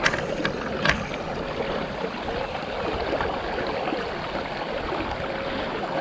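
River water rushing past steadily. Two short sharp clicks come in the first second.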